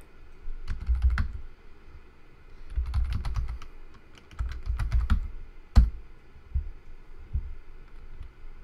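Computer keyboard typing in short runs of keystrokes, three quick bursts, then one louder single key press about six seconds in, followed by a few scattered taps.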